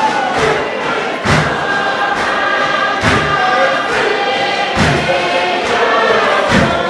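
Tuvaluan fatele: a large group of voices singing together in harmony over a slow, steady beat of thuds on a struck wooden box drum, about one a second, every other beat louder.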